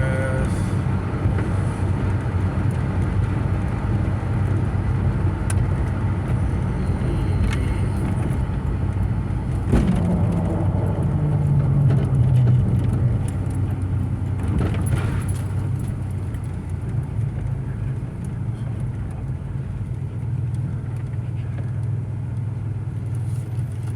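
Car engine and exhaust running steadily under way, with a low drone; about ten seconds in the engine note rises briefly as it accelerates, then settles back.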